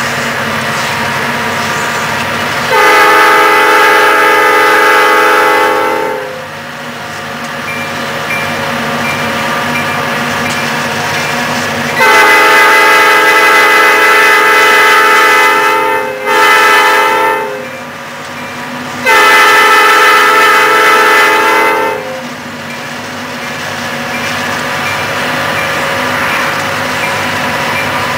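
Diesel freight locomotive's multi-chime air horn sounding long, long, short, long, the standard grade-crossing warning. The locomotives' engines and the rolling train drone steadily between the blasts.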